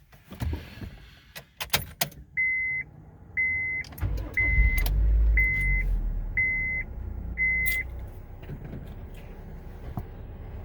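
Clicks and a key jingle, then a car's warning chime beeping six times about once a second while a 2005 Honda Civic DX's four-cylinder engine cranks and starts about four seconds in, then settles into a steady idle. This is the first start after a rod knock repair.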